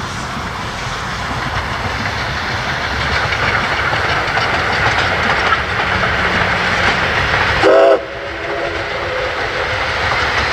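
Steam locomotive running past, a steady rush of train noise growing slowly louder, with a short blast of its whistle about three quarters of the way through.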